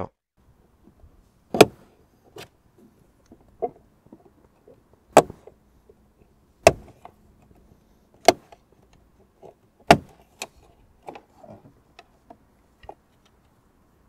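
Plastic clips of a BMW interior door trim snapping loose one after another as the trim is pried off with a plastic trim tool. There are about six sharp clicks a second or two apart, with lighter clicks and handling noises between them.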